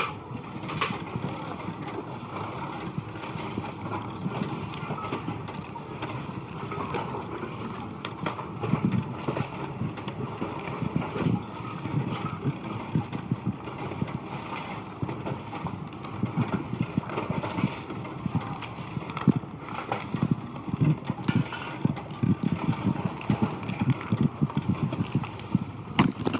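Bottle-and-can return machine taking in and crushing cans and bottles: a continuous rattling, crunching clatter that grows punchier partway through.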